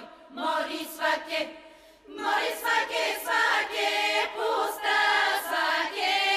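Bulgarian folk choir of women's voices singing together. A short phrase opens it, the sound thins briefly about two seconds in, then the full choir comes back in louder.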